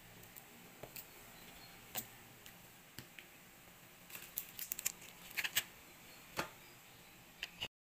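Scattered light clicks and ticks of handling, busiest about four to six seconds in, over a faint steady hiss; the sound cuts off just before the end.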